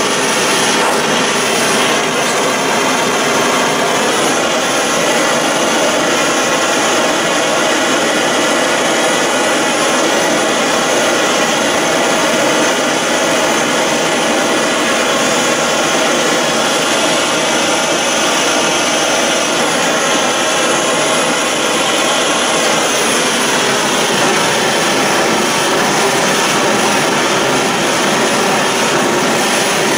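Gas blowtorch burning steadily with a loud, even rushing noise as it heats steel parts in a metal can for heat blueing.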